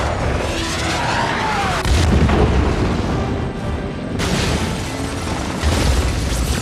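Film sound effects of a missile streaking off with a falling whine, then deep explosion booms about two seconds in and again near the end, as a rooftop tower is blown up. Dramatic score music plays throughout.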